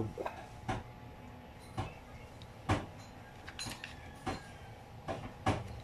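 Scattered light clicks and knocks, roughly one a second, from hands working wires and small parts of a washing machine's wiring connector, with two louder knocks near the middle and near the end.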